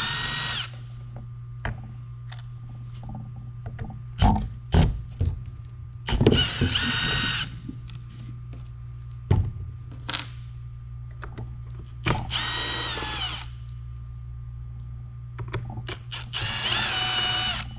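Power drill/driver with a 1/8-inch hex bit spinning out the Onewheel's four top foot-pad bolts: four short motor whines, each rising and falling in pitch, with clicks and knocks between them.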